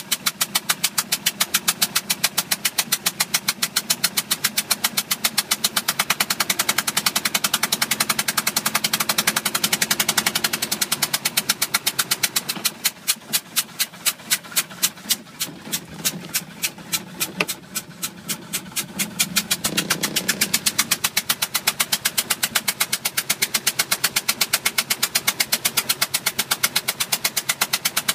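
2005 Bayliner 175's engine running with a loud, regular knock, about five a second. The knocking slows for several seconds midway, then quickens again. The cause of the knock is unknown to the owner.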